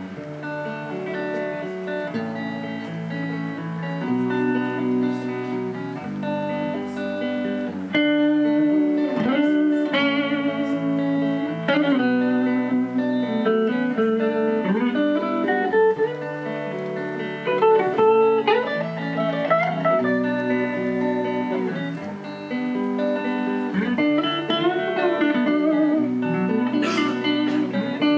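Two Les Paul-style electric guitars playing an instrumental duet: one holds a chord rhythm while the other plays a lead melody with string bends. The playing gets louder about eight seconds in.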